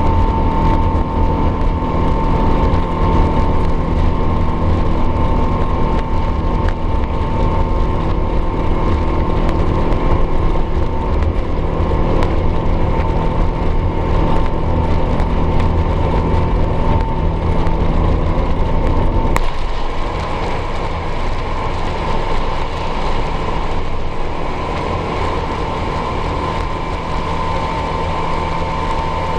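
Jet engine noise inside the cabin of an Airbus A350-900, its Rolls-Royce Trent XWB engines running at high power with a steady whine and a low rumble. About two-thirds through, a faint click comes and the low rumble drops off, leaving a slightly quieter steady engine noise.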